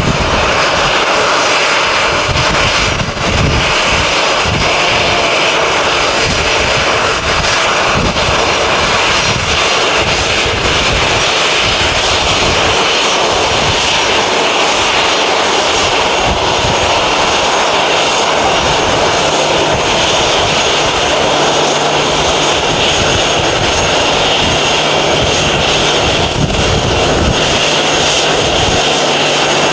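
Jet airliner engines running loud and steady, a dense rumble with a hissing whine on top, and a faint low hum joining about two-thirds of the way through.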